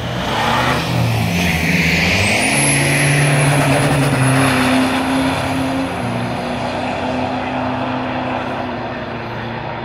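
Isuzu 4J four-cylinder turbo-diesel in a Gemini drag car launching and accelerating hard down the strip. Its engine note climbs and steps up in pitch about two seconds in, with a high thin whine above it. The sound gradually fades as the car pulls away.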